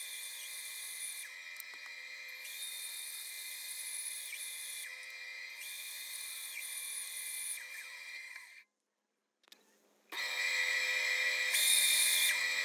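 Small band saw running and cutting a curve through a thick wooden block, with a steady high whine. It cuts off abruptly about two-thirds of the way through. About a second and a half later it comes back louder, cutting a small strip of wood.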